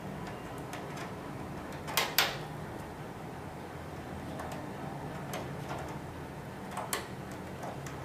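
Clicks and knocks of an HDMI cable's plug and cable being handled and fitted into a port on the back of a TV: two sharp clicks close together about two seconds in and another near seven seconds, with fainter ticks between, over a steady low hum.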